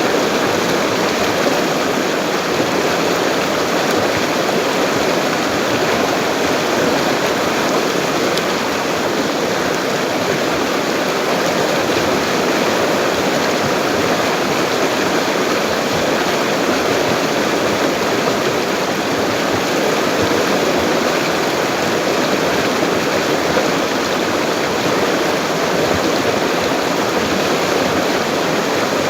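Full-flowing river rushing steadily: an even, unbroken wash of water noise with no pauses or changes.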